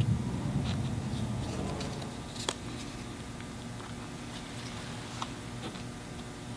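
Faint scattered taps and light clicks of a cardstock strip's edge dabbing acrylic paint onto a canvas, with one sharper click about two and a half seconds in, over a low room hum.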